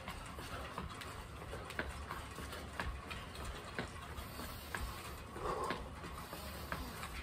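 Footfalls landing on artificial turf during a rhythmic jumping drill: a light thud about once a second, over a steady low rumble.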